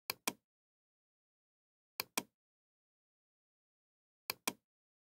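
Computer mouse double-clicks: three pairs of sharp clicks, about two seconds apart.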